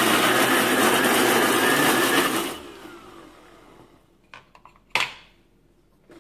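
Mixer grinder motor running at full speed, grinding fried okra and onions into a chutney in its steel jar. It is switched off about two and a half seconds in and winds down, followed by a few clicks and a sharp knock as the steel jar is handled on the base.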